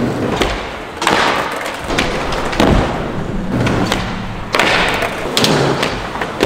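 Skateboards rolling on an indoor skatepark's ramps, with several sudden board thuds and slaps from landings and tricks, about four in the span.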